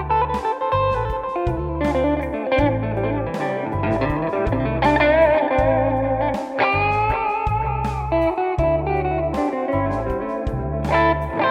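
Electric guitar playing A minor pentatonic lines with string bends and vibrato, over a backing track with a steady repeating bass part.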